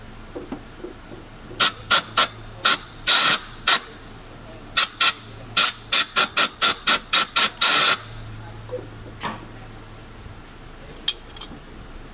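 Short, sharp bursts of spray hissing, about sixteen in quick succession over some six seconds, the last one held a little longer. A steady low hum runs underneath.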